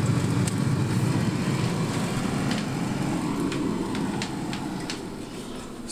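Freezer running with a steady low hum that fades over the last couple of seconds, with a few faint light clicks from the plastic ice cream tub being handled.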